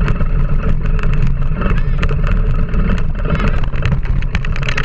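Wind buffeting an action camera's microphone and tyres rolling over a dirt trail at speed, loud and steady, with many rattling clicks from the rig and a couple of short squeaky glides.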